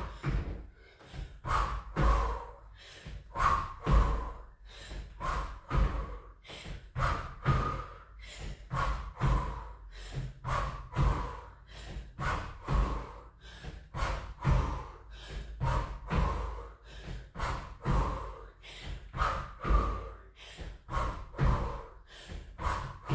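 Trainers landing on an exercise mat over a wooden floor during repeated jumps: a steady rhythm of dull thuds, roughly one every three quarters of a second, with hard breathing in time with them.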